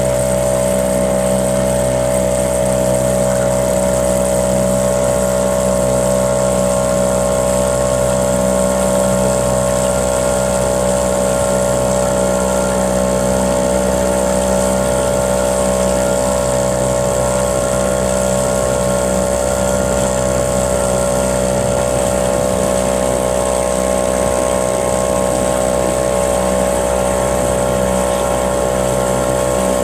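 A small engine running at a constant speed, with a steady whine over a low hum.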